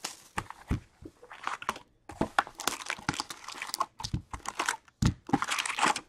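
Foil wrappers of Upper Deck Series 2 hockey card packs being torn open and crinkled in the hands, an irregular run of rustles and crackles.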